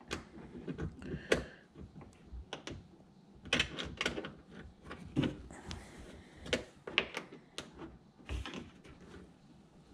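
Hex key turning bolts tight through a plastic kayak hull: irregular small clicks, taps and scrapes of metal on metal and plastic.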